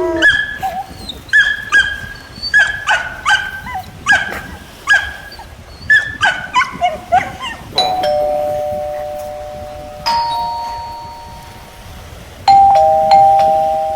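A dog yapping in quick short bursts, about two a second, for the first half. Then a doorbell chiming ding-dong several times, each chime ringing on and fading.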